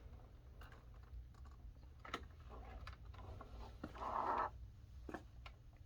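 Faint scattered clicks and a brief rustle of handling noise about four seconds in; no accordion notes sound.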